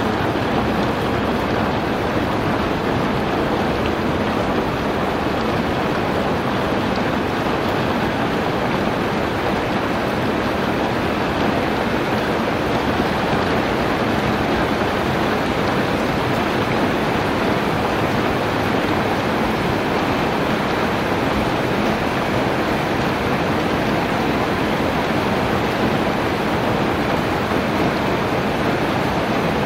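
Steady heavy rain, a dense even hiss with no thunder or single drops standing out.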